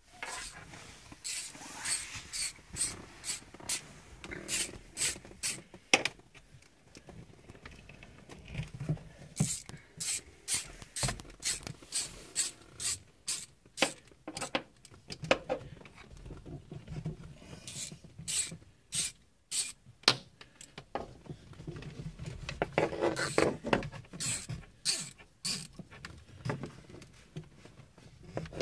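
Braided fishing line being sawn through the urethane adhesive that bonds a car windshield: repeated short rasping strokes, a few a second, in runs broken by short pauses. One sharp click stands out about six seconds in.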